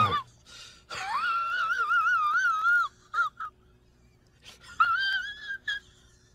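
A woman wailing in a high, wavering crying voice. One long wail of about two seconds starts about a second in, short sobs follow, and a shorter wail comes about five seconds in.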